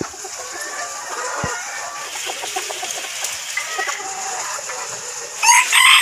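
Bantam chickens clucking softly, then a rooster crowing loudly near the end.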